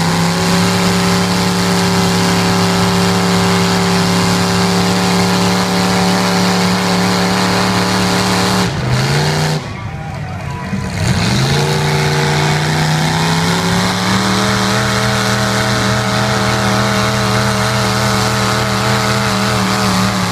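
Pickup truck engine held at high revs as the tyres spin and churn through deep mud. The revs drop off about nine seconds in, then climb back up and hold high.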